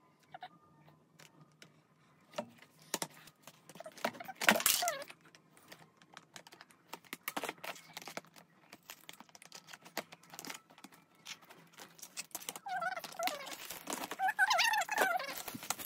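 Plastic shelf panels and blue plastic connectors of a flat-pack corner rack clicking and knocking together as they are handled and pushed into place. A louder knock with a brief squeak comes about 4.5 s in, and a run of squeaks near the end as a connector is forced onto a panel.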